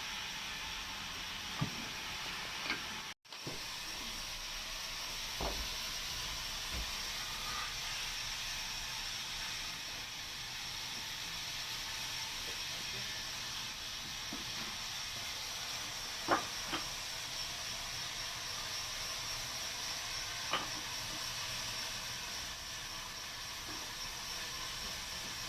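Steady hissing noise of a sawmill bandsaw running, with a few sharp knocks scattered through it and a brief cut-out near the start.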